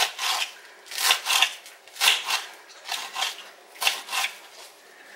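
Knife slicing through crisp romaine lettuce on a glass cutting board: short crunchy cuts, each ending in a light tap of the blade on the glass. The strokes come in pairs about once a second and grow fainter near the end.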